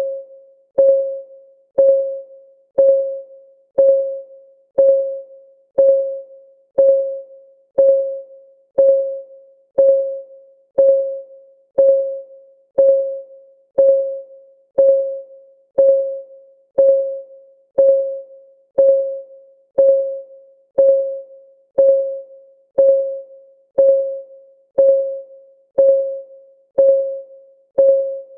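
Countdown timer's clock-ticking sound effect: a short pitched tock about once a second, each one dying away quickly, in an unbroken steady beat.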